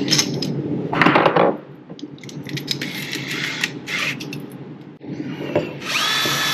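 Hand tools and metal parts being handled, with scattered clinks and scrapes and a louder rustle about a second in. Near the end an electric power tool's motor spins up, rising in pitch, then runs with a steady whine.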